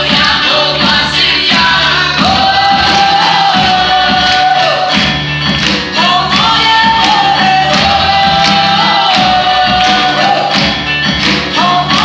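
Women's voices singing with a live band, the melody held in long notes over a steady rhythmic accompaniment.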